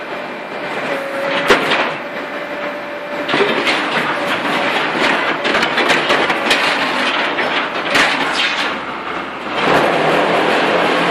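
Heavy machinery running with dense metallic rattling and clattering; the noise grows louder and steadier near the end.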